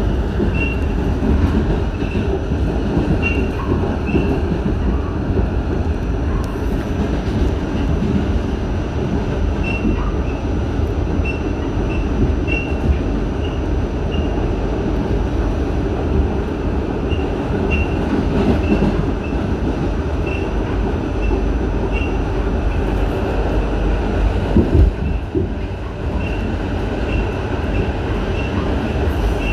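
New York City subway train running at speed, heard from inside the car: a steady deep rumble of wheels on the rails, with short high-pitched chirps recurring throughout. A brief louder knock comes about 25 seconds in.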